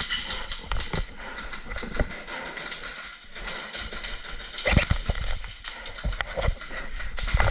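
Irregular knocks and scuffling, with a cluster of louder knocks about five seconds in.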